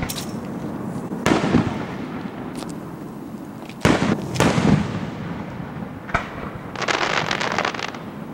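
Fireworks show: three booming bursts over the first five seconds, each trailing off, then a sharp crack and about a second of dense crackling near the end.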